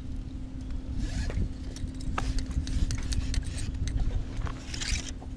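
Rustling, scraping and light knocks of fishing tackle being handled on a bass boat's deck, with brief rustles about a second in and near the end. Under it runs a steady low hum and a wind rumble on the microphone.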